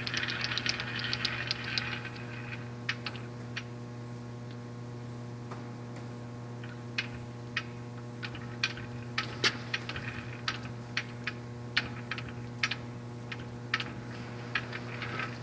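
Clausing Colchester Student 2500 lathe on 3-phase power, running unloaded at 1200 RPM: a steady hum, with a brief hiss at the start and scattered light clicks throughout.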